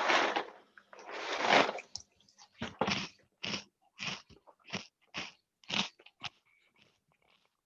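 Crunching close to a microphone. Two longer rustling bursts come first, then short crunches in a steady rhythm of about one and a half a second, stopping a little over six seconds in.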